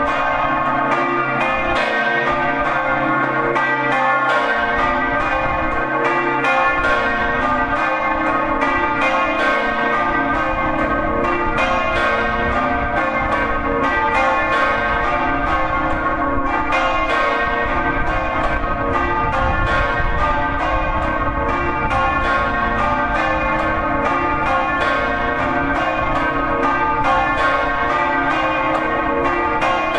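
Three bronze church bells, the 1920 Daciano Colbachini bells tuned B♭2, C3 and D3, swinging in the Friulian style and ringing a full peal. Their clapper strikes come quickly and overlap into continuous ringing. Heard close up from inside the belfry.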